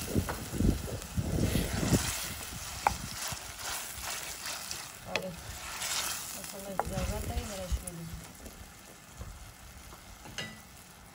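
Wooden spoon stirring grated tomato and onion frying in oil in a stainless steel pan, scraping and knocking against the metal over a light sizzle. The stirring stops near the end, leaving a quieter sizzle.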